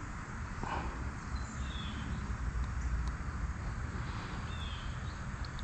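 Steady outdoor creek-side background noise with a low rumble, and a few faint short high chirps from birds.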